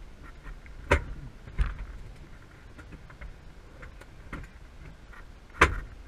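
A few sharp clicks and knocks in a Cessna 172 cockpit, like switches being flipped and controls handled during the pre-start checklist. Two come about a second in, a softer one follows later, and the loudest is near the end.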